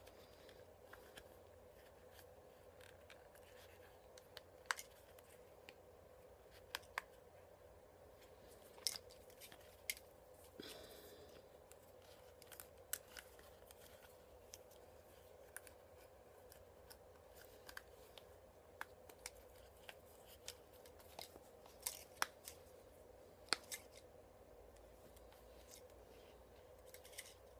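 Sparse sharp clicks and a brief scrape, from the small plastic and rubber parts of an HID headlight kit (bulb, wiring connectors and rubber boot) being handled and fitted together, over faint room tone with a steady hum.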